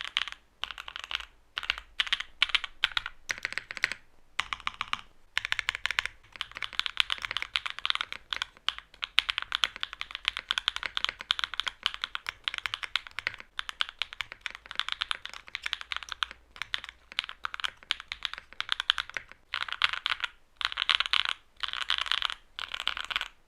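Typing on a mechanical keyboard with hand-lubed Cream Soda linear switches in a carbon fibre plate with no foams: fast runs of keystrokes with short pauses between bursts.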